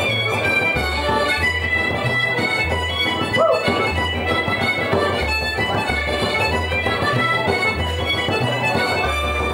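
Traditional Irish instrumental tune led by an accordion, its bass chords changing in a steady rhythm beneath the melody, with other instruments joining in.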